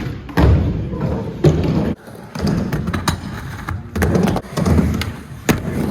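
Skateboard wheels rumbling over pavement in stretches of about a second, broken by short pauses, with sharp clacks and thumps of the board.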